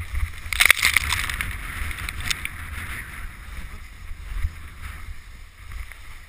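Wooden horn sled (krňačky) sliding fast over snow: a steady scraping hiss of the runners with wind buffeting the microphone, and a louder burst of crunching scrape just under a second in.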